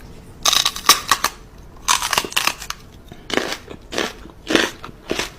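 A series of irregular crunching sounds, coming in clusters about every half second to a second.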